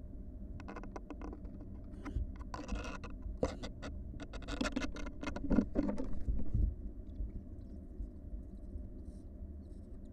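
Barn owl nestlings shuffling and scratching inside their nest box: a run of quick scratches and taps, busiest from about two to six and a half seconds, then dying away over a low steady hum.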